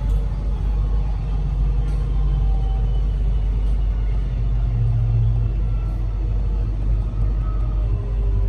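Metro Trains Melbourne suburban electric train running, heard from inside the carriage: a steady deep rumble with faint, slowly gliding whine tones above it.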